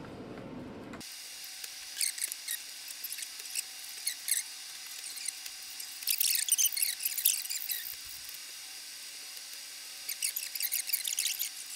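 Blue painter's tape being pulled off its roll in short, squeaky, tearing rips, several strips in turn, the longest run about six seconds in.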